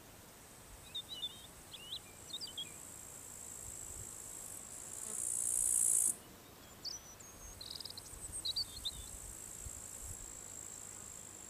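Crickets chirring steadily in a high, thin band, with bursts of short bird chirps twice. About five seconds in, a louder, hissier insect buzz swells for about a second and a half and cuts off suddenly.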